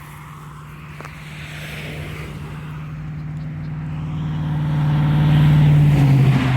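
A motor vehicle approaching on the road, its engine hum and tyre noise growing steadily louder. Near the end the hum drops slightly in pitch as it passes close by.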